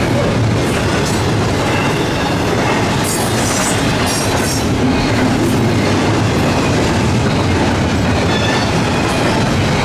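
Double-stack intermodal freight cars rolling past on the rails: a steady, loud rumble of steel wheels on track. Two short stretches of high hissing come about three and four seconds in.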